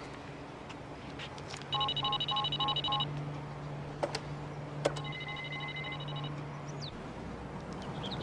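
Electronic equipment beeping: two runs of rapid pulsing beeps, about four a second, over a low steady electrical hum, with a couple of sharp clicks between them. The hum cuts off near the end.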